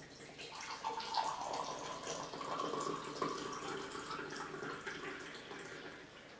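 Coffee being poured into a cup, the tone of the pour rising slightly as the cup fills, then tailing off near the end.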